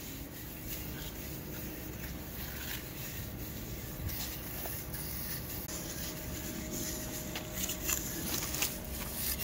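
Small hand trowel scraping and smoothing wet cement on a wall in soft, irregular strokes.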